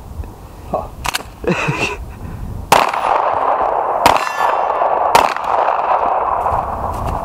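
Four pistol shots from a Smith & Wesson M&P Core, fired a second or so apart, each hit answered by steel targets clanging and ringing on.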